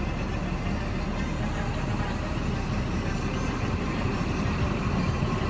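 Scania R 420 truck's diesel engine idling steadily, heard from inside the cab.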